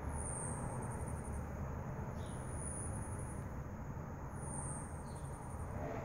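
Hummingbird giving a very high, thin siren-like call three times, about two seconds apart; each call is a brief whine that swells and fades, then breaks into a quick stutter of pulses.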